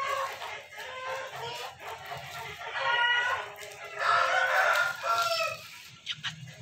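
A rooster crowing: a short call about three seconds in, then a longer call that falls in pitch at its end.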